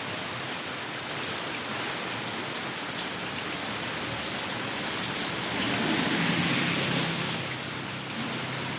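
Heavy rain and rushing floodwater, a steady wash of water noise that swells louder for a couple of seconds past the middle.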